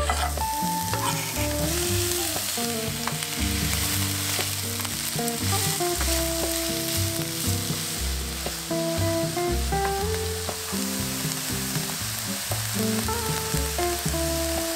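Food sizzling in a hot pan, with background music.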